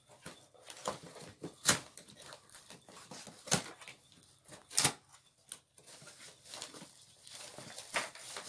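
A cardboard box being opened and rummaged through by hand: irregular rustling and scraping of the cardboard, with sharper knocks about 2, 3½ and 5 seconds in.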